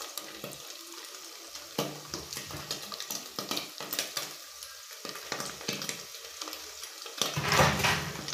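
Meat and onions sizzling in a cooking pot while a spoon stirs and scrapes against it in short strokes, with a louder burst of stirring and sizzling near the end.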